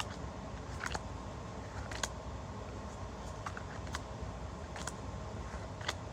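Trading cards being handled: about seven light clicks and taps at irregular intervals, over a steady low background rumble.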